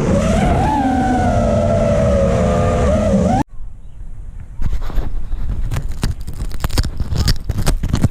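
FPV quadcopter's brushless motors whining, their pitch sliding up and down with throttle, cut off abruptly about three and a half seconds in. After a brief quiet stretch come dense, irregular crackles and knocks.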